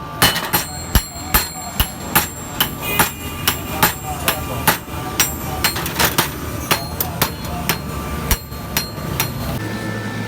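Blacksmith's hand hammer striking steel on an anvil while forging a spear head, about three blows a second, each with a metallic ring. The hammering stops near the end, leaving a steady low hum.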